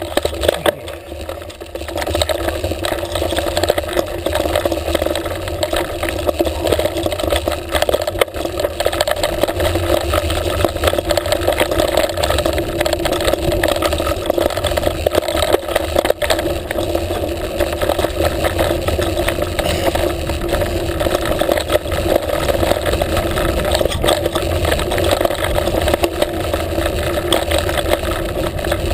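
Mountain bike riding over a woodland dirt trail, heard from a handlebar-mounted action camera: continuous tyre rumble and wind buffeting with frequent knocks and rattles from bumps, getting louder about two seconds in as the bike gathers speed.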